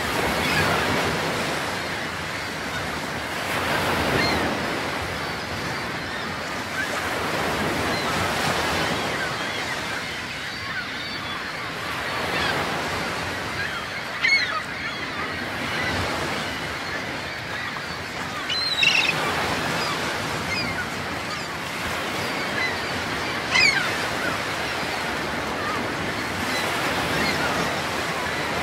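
Sea water washing and lapping against a small boat's hull, swelling and fading every few seconds, with wind. Three brief high-pitched squeaks or calls about five seconds apart stand out as the loudest sounds.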